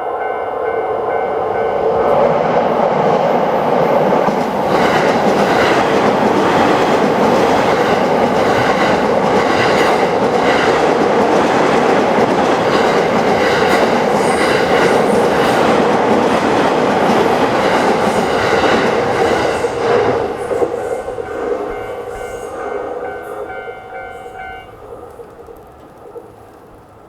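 Japanese railway level-crossing warning bell ringing steadily while an electric train passes through the crossing, its wheels clattering rhythmically over the rail joints. The train fades away after about twenty seconds, and the bell stops a few seconds before the end.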